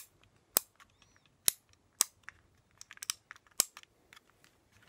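Sharp plastic clicks of a USB hub's individual port on/off switches being pressed, about a dozen irregular clicks, the loudest roughly half a second to a second apart.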